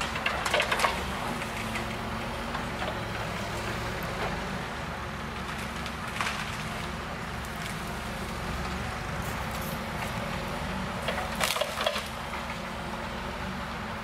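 Eschlböck Biber 84 wood chipper, powered by a John Deere 8360R tractor, running with a steady low hum as wood is fed in. Cracking and splintering come in bursts about half a second in, around six seconds, and loudest near the end.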